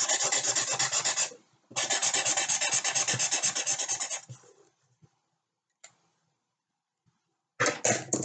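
Pen colouring in on paper with rapid back-and-forth scribbling strokes, in two spells with a short break about a second in, stopping about four seconds in. A short burst of the same scratchy rubbing comes near the end.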